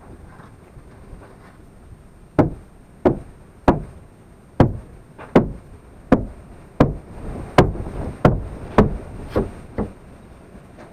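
About a dozen hard hammer blows at a steady pace, a little under one a second, starting about two seconds in; the last few are softer.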